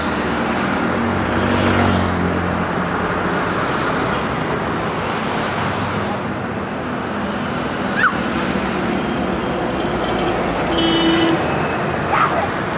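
Steady city road traffic: cars and scooters passing with engine and tyre noise, a low engine drone rising and falling in the first couple of seconds. A vehicle horn sounds briefly near the end.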